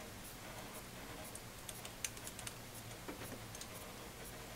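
Faint, irregular small metallic clicks and ticks as a small screwdriver turns out the UFO-type pivot screw of a hair-cutting shear with an internal clicker plate. The clicks bunch together about two seconds in, where the loudest one falls.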